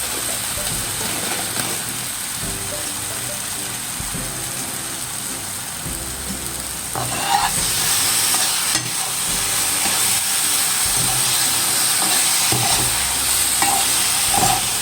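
Ripe nendran banana slices sizzling in ghee on a dosa tava, brown sugar sprinkled over them and melting. The sizzle grows louder about seven seconds in.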